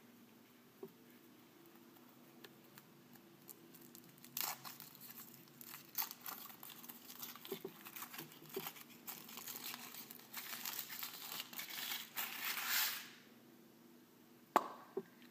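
Thin foil wrapper of a chocolate surprise egg being peeled off and crinkled by hand, a dense crackling from about four seconds in that stops about two seconds before the end. Near the end come two sharp snaps as the chocolate shell is broken open.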